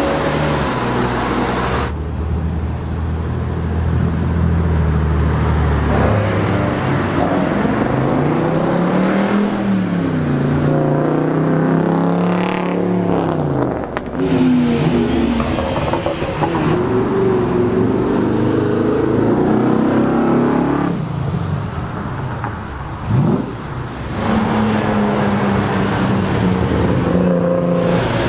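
Several cars driving past one after another, among them a BMW Z3 coupe, a Dodge Durango and an Audi RS6 Avant. Their engine notes rise and fall as they accelerate away, with a brief sharp rev late on.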